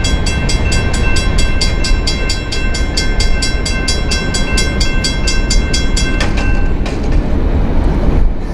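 Passing freight train: a diesel locomotive's horn holds a long steady chord over the heavy rumble of the train and cuts off about six seconds in. A fast, even high ringing also stops there.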